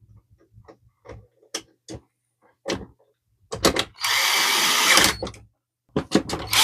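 Cordless drill-driver with a Torx T10 bit running for about a second, driving a screw into a printer's plastic top cover. Before it come light clicks and taps of the screw and bit being set in place, and a second run starts right at the end.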